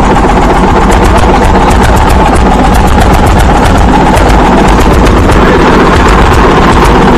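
Small engine running steadily and loudly, with a fast, even ticking over a constant rumble: the handmade miniature diesel engine running.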